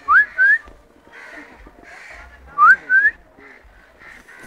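A clear two-note whistle, each note gliding upward, given twice about two and a half seconds apart over faint background noise.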